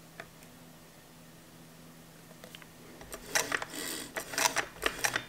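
Faint steady room hum, then from about three seconds in a run of irregular clicks and rattles as the exposed mechanism of an old Singer sewing machine is handled and oiled.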